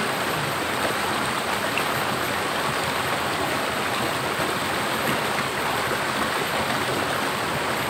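Water of a small waterfall and river rushing steadily over rock: an even, unbroken wash.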